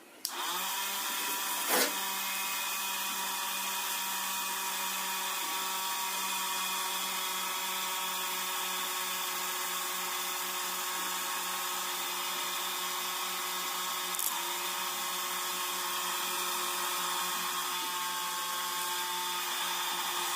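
Small electric table fan motor running steadily, a constant whine over a hiss, with a faint click about two seconds in and another near fourteen seconds.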